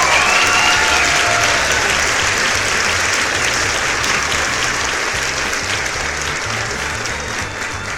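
Crowd applauding and cheering, dense clapping with a few whoops in the first second, slowly fading.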